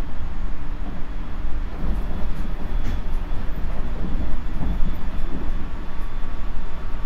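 JR Central 373 series electric train, motor car KuMoHa 373-8, running: a steady low rumble of wheels on rail with faint steady tones over it.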